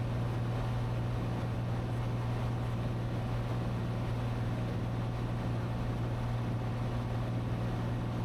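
Cessna 182T's six-cylinder Lycoming IO-540 engine and propeller in cruise flight: a steady, unchanging drone with a strong low hum.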